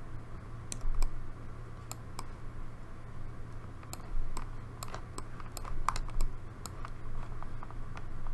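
Irregular clicks and taps of a computer keyboard and mouse being worked, a few at a time, coming thicker about halfway in, over a steady low hum.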